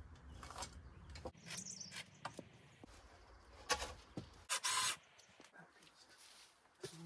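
Work sounds of handling lumber and tools: scattered knocks, clicks and scrapes, with a sharp loud click and then a loud half-second noisy burst a little past the middle.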